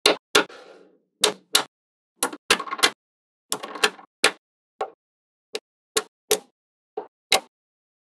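Small magnetic balls clicking and snapping together as strips of balls are laid onto a wall built of them: a string of sharp, irregular clicks, some followed by a brief rattle.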